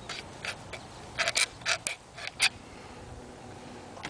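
A pointed tool scraping and clicking against the side of an aluminium can as it is worked in to punch a hole for shotgunning. About nine short scrapes come in the first two and a half seconds, and then it goes quiet.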